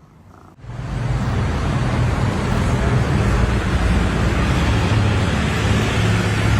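A steady, loud mechanical rumble with a strong low hum, starting suddenly about half a second in.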